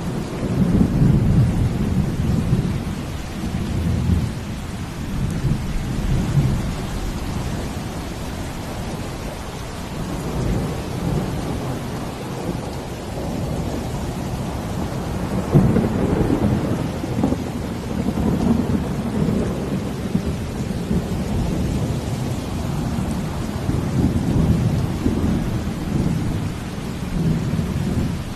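Steady rain over a deep, low rumble that swells and fades every few seconds. The rumble is strongest about a second in and again at about sixteen seconds in.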